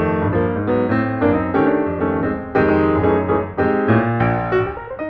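Piano music with chords struck in a steady rhythm and a melody over them.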